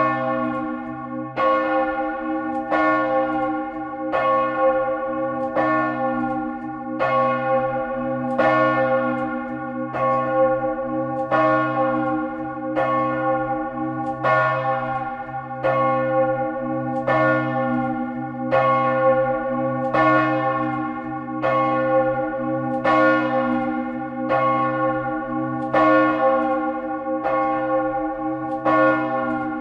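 A great church bell swung in full peal at a high swing angle, heard close up from inside the belfry. Its clapper strikes in a steady, even rhythm, each stroke ringing out over a low hum that sounds on without a break between strokes.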